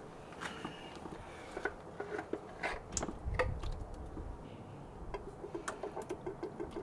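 Faint clicks and taps of an oil filter cartridge cap being unscrewed by hand and lifted off its housing, with a quick regular run of light ticks near the end.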